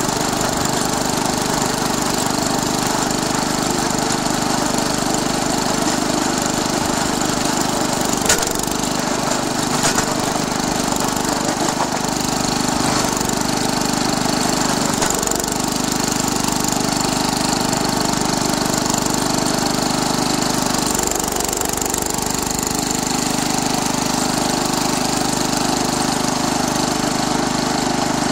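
Wheel Horse 856 garden tractor's 8 hp Kohler single-cylinder engine running steadily under load while plowing snow. A couple of short sharp knocks stand out about eight and ten seconds in.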